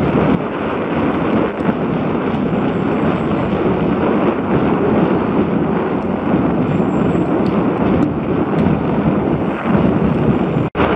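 Wind buffeting a helmet-mounted action camera's microphone as a mountain bike is ridden fast along a dirt forest trail: a loud, steady rushing roar. It drops out for an instant near the end.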